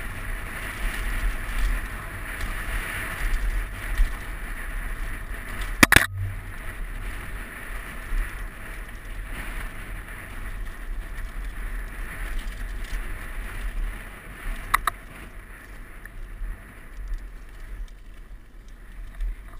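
Giant Glory downhill mountain bike riding a dirt singletrack, heard through a helmet-mounted GoPro: steady wind and tyre rumble with the bike rattling over the ground. A sharp, loud knock comes about six seconds in and a smaller one near fifteen seconds, and the rumble eases off over the last few seconds.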